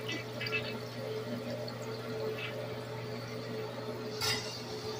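Briggs Conserver toilet refilling just after a flush, with water swirling in the bowl and running in steadily under a low hum. A short sharp click comes about four seconds in.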